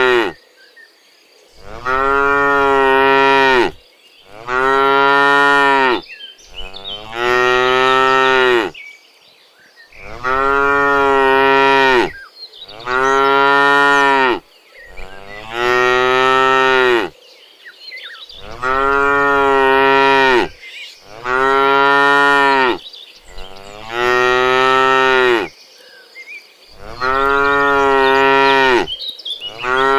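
Cattle mooing over and over: about a dozen long, loud moos of roughly two seconds each, following one another with short pauses between.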